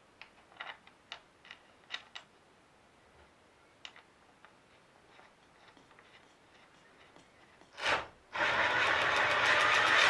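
A few light clicks and ticks, then about eight seconds in a chainsaw engine is pull-started: a short loud swell, and the engine catches and runs loudly.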